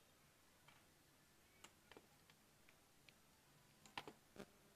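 Faint, scattered light clicks and taps from hands handling the AirPods and their charging case, with a quick cluster of clicks about four seconds in.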